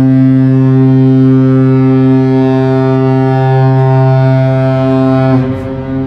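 Ship's horn of the chemical/oil products tanker Silver Libra sounding one long, loud, low blast. It stops about five and a half seconds in and leaves a short echo across the harbour.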